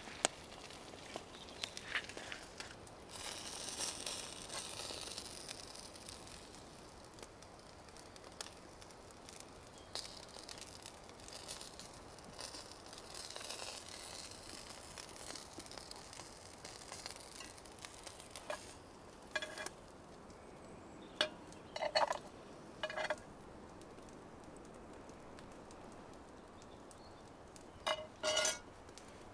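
Food sizzling in a cast iron frying pan over a crackling campfire. In the second half, a knife and fork clink several times against the metal pan.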